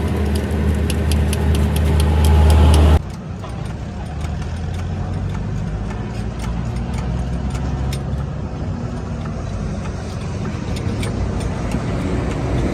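Truck engine running steadily. The sound is louder for about the first three seconds, then drops suddenly to a quieter, steady engine hum.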